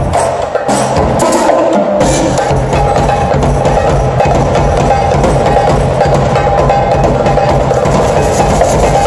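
Live percussion ensemble playing a fast, dense groove on drum kits, timbales, large barrel drums and a lap-held two-headed hand drum. About two seconds in, the deep drums come in and the sound fills out.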